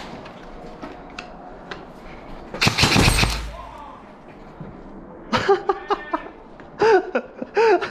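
Airsoft rifle firing a short full-auto burst of just under a second, about three seconds in. Loud shouted calls from players follow near the end.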